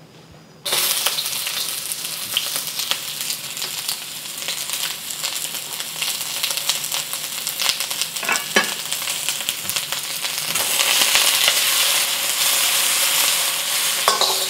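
Sliced onions hit hot vegetable oil in a wok and sizzle, starting suddenly about a second in. Near the end the sizzle grows louder as a metal wok spatula stirs and scrapes the onions around the pan.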